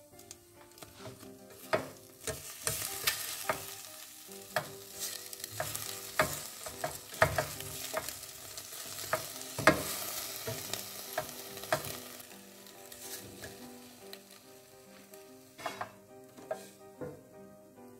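A silicone spatula stirring and turning hot pork pieces in a nonstick air fryer basket, with irregular knocks and scrapes against the basket and a light sizzle from the food. The stirring is busiest in the first two-thirds, and a few knocks come near the end.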